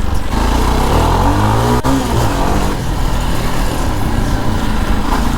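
A vehicle engine accelerating, rising in pitch for about a second and a half, then a sharp click and a drop in pitch as it shifts up a gear, over steady wind rush on the microphone.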